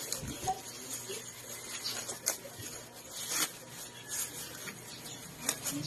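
Thin black plastic bag crinkling and rustling in scattered crackles as hands pick at it and pull it open.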